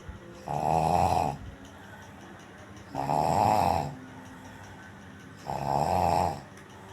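A person snoring: three loud snores, each just under a second long, repeating about every two and a half seconds.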